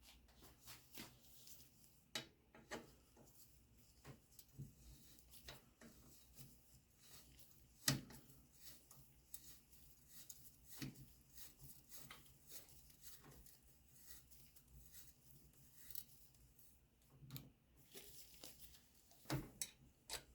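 Faint, scattered clicks and short rustling strokes of hands working on small parts, with one sharper click about eight seconds in and a few more near the end.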